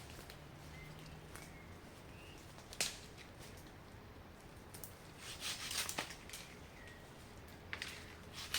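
Scattered sharp snaps and rustles of someone moving about on wet forest ground, over a low steady background. The loudest cluster comes about five to six seconds in. A few faint short high chirps sound early on and around seven seconds in.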